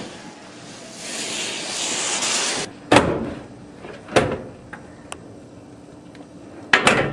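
A steady rushing hiss that cuts off abruptly, followed by heavy bangs with a ringing tail: one, another about a second later, and a quick double near the end, with a few small clicks between.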